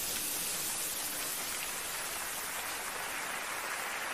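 Steady hiss of falling water pouring down onto surfaces, even and unbroken.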